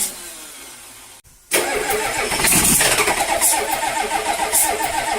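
International 7.3 V8 diesel engine: the sound fades in the first second, drops to a brief near-silence, then the engine comes in suddenly about a second and a half in and runs on with an even rhythmic beat.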